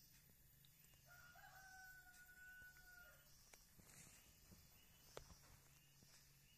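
A rooster crowing faintly: one long held call of about two seconds, starting about a second in. A few faint ticks follow.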